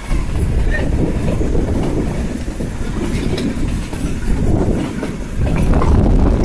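Kalka–Shimla narrow-gauge toy train running along the track, heard from on board, growing louder about five and a half seconds in.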